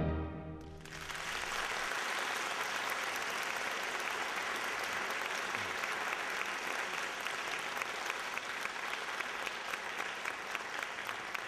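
Audience applauding steadily, starting about a second in as the last chord of the ballet music dies away.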